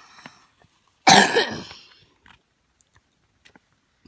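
A single short cough about a second in, starting abruptly and dying away within a second.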